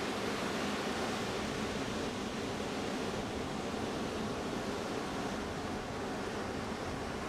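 Ocean surf: a steady, even wash of waves, with no single break standing out.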